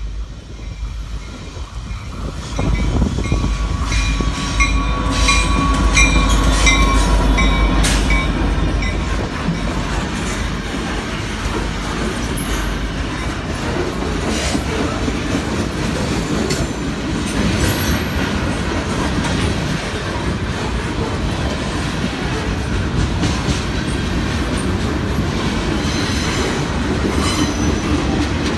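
Canadian National freight train passing close by: the SD75I diesel locomotive rumbles past, loudest in the first several seconds. Loaded lumber flatcars and boxcars follow, rolling by with steady wheel noise on the rails.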